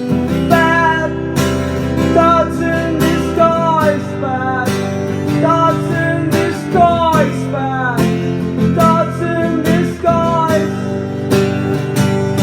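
Acoustic guitar strummed steadily while a singer sings a melody over it, a live singer-songwriter performance.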